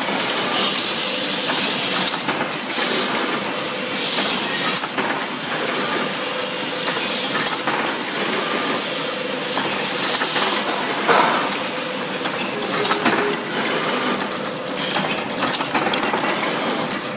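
Wire hanger making machine running: a steady mechanical hum with short hissing, clattering bursts repeating every second or two.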